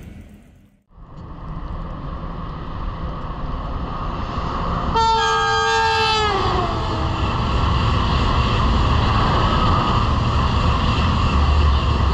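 TGV high-speed train running past with a steady rush of noise. About five seconds in it sounds its horn once for a little over a second, the pitch sliding down as it goes by.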